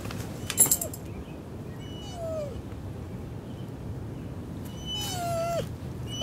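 Dog whining in short, falling whimpers, three in all, the longest about five seconds in, with a loud, sharp yip about half a second in.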